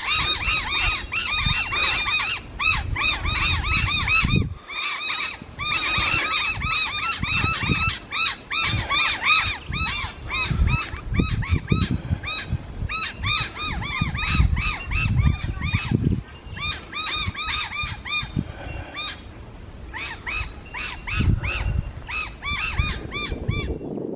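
Birds calling rapidly and continuously, many short arched calls overlapping, with a brief lull about two thirds of the way through. Low, irregular rumbling sits underneath.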